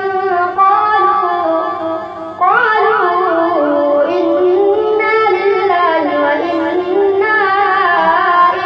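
A boy's voice reciting the Quran aloud in a melodic chant, with wavering ornaments on the long notes. There is a short breath pause a little over two seconds in, and then the recitation resumes on a higher pitch with quick rising turns.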